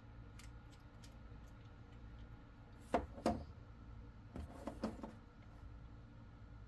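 A few short light knocks and clicks from small parts and wire being handled on a workbench, two close together about three seconds in and a small cluster about a second later, over a steady low hum.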